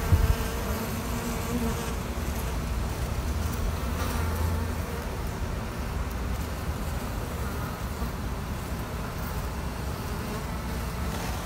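Honey bees buzzing close by in a steady hum.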